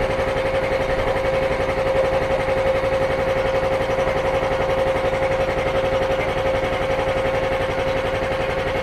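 PUMA 10 hp three-piston, belt-driven air compressor running under its three-phase electric motor, with a steady rapid chugging and a constant tone, as it pumps the tank up toward its automatic pressure-switch cut-off.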